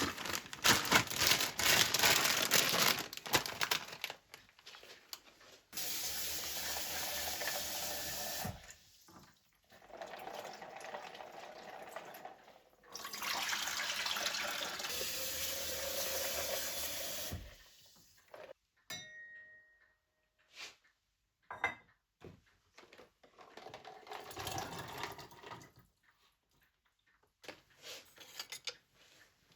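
Water running in four separate bursts of a few seconds each, followed by a few light knocks and a short, fainter run of water.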